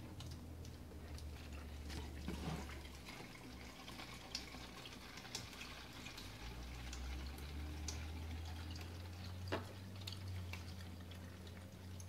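Water dripping and trickling through a straw from an upturned plastic bottle into a bottle joined beneath it, heard as faint, irregular small drips, over a low steady hum.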